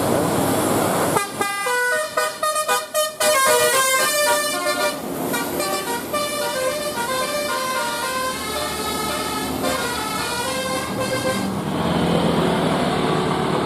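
Bus telolet horn, a multi-trumpet musical air horn, playing a melody: a rapid run of notes about a second in, then a slower tune that stops near the end, over street noise.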